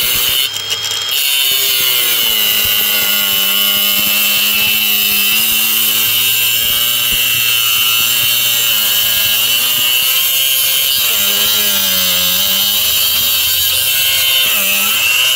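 Cordless angle grinder with a cut-off disc cutting through a worn miniature-railway rail: a loud, steady grinding whine whose pitch sags and recovers as the disc bites. It falters briefly about half a second in.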